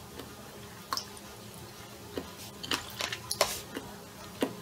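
Someone chewing a mouthful of thin-sliced cucumber dressed in Italian dressing: irregular short, wet clicks from the mouth, bunched together in the second half.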